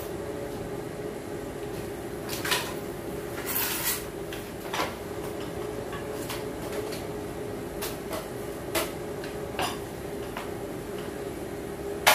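Electrical cable and a small plug box being handled, with scattered clatters and knocks, the loudest about two and a half seconds in, a second around four seconds, and one near the end, over a steady hum.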